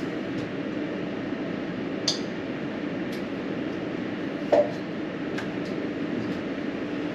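Steady low rumble of background noise, with a faint click about two seconds in and a louder short knock about four and a half seconds in.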